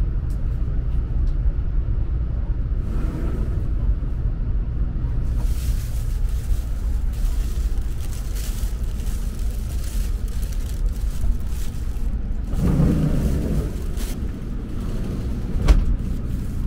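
Steady low rumble of a Rail Star Shinkansen bullet train running, heard from inside the car. The rumble swells briefly about three-quarters of the way through, and there is one sharp click near the end.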